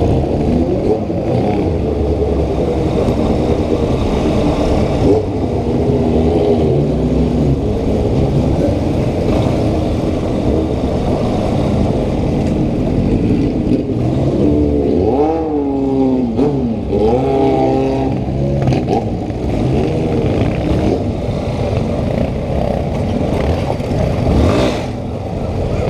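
Yamaha Ténéré 250 single-cylinder motorcycle engine revving while riding, its pitch rising and falling again and again through gear changes and throttle.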